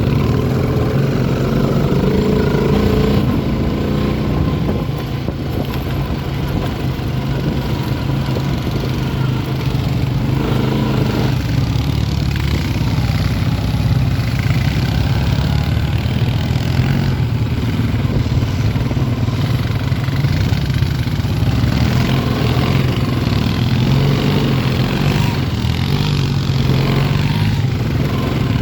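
Honda ATV engine running steadily under way, its note shifting a little as the throttle changes, with a rush of wind and terrain noise.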